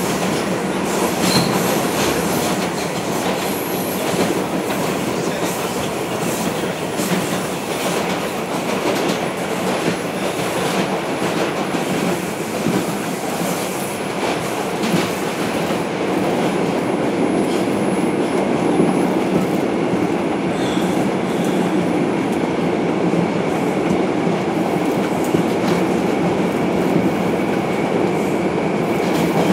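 Inside an R142 subway car running between stations: a steady rumble of wheels on rail, with scattered clacks over the rail joints and a thin, high steady tone in the last several seconds.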